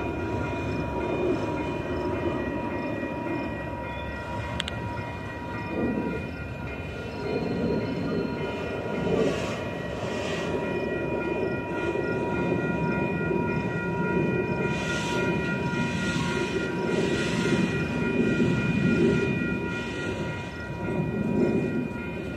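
Freight train of autorack cars rolling past, with the continuous rumble of steel wheels on the rails. A steady high ringing tone runs under it, and short hissing swells come and go.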